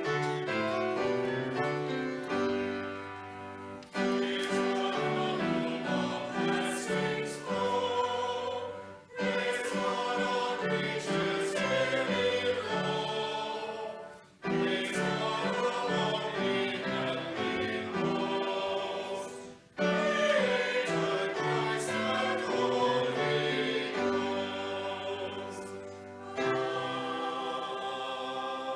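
A group of voices singing a hymn together over held low accompaniment notes, in phrases about five seconds long with short breaks between them.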